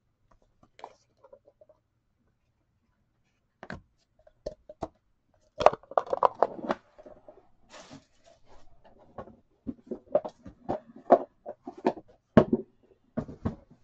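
Light clicks, taps and rustles of trading cards and cardboard pack packaging being handled. The sounds come scattered and irregular from about four seconds in.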